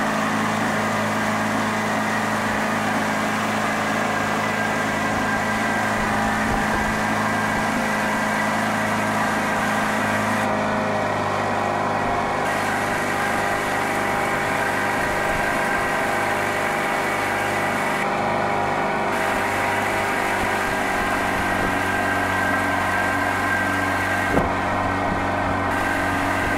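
Engine of a motorboat running steadily under way, with a constant hum and water noise. About eleven seconds in, one of its low tones drops out and the engine note shifts slightly.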